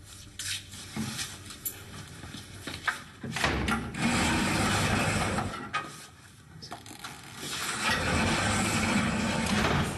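Barred steel jail cell door sliding on its track with a long rattling, scraping roll about three seconds in, then a second long scraping roll near the end, with a few light clicks before.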